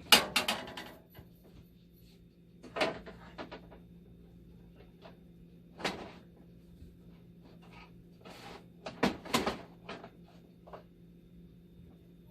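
Dialysis machine's panels and parts knocking and clattering as its housing is put back together: a loud clatter at the start, then single knocks about 3 and 6 seconds in and a double clatter about 9 seconds in.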